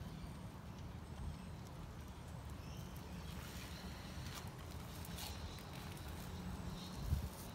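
Low steady rumble with scattered faint clicks, and one louder thump near the end.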